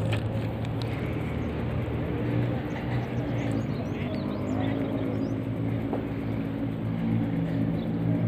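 A small engine running steadily with a low hum, with a few faint bird chirps over it.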